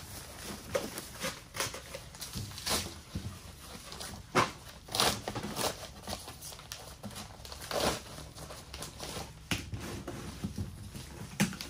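Paper and plastic packaging crinkling and rustling as items are handled and unwrapped, in irregular short rustles with a few louder ones.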